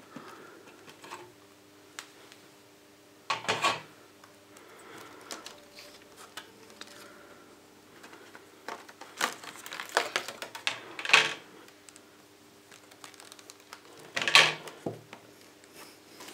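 Clear plastic model-train packaging being opened and handled: plastic crackling and clicking in several short bursts, loudest about three and a half seconds in, around ten to eleven seconds in, and near the end.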